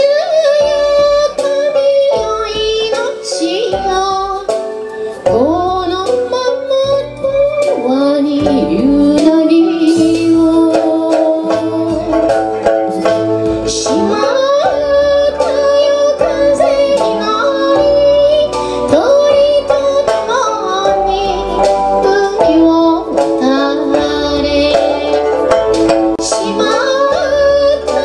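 A woman singing a slow Okinawan song with vibrato and sliding notes, accompanied by her own plucked sanshin and sustained synthesizer keyboard chords with a bass line.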